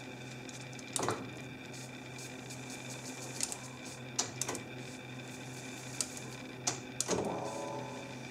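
Buttons on a multitrack reel-to-reel tape recorder clicking several times as they are pressed, with a louder clunk and a brief ringing tone near the end, over a steady electrical hum.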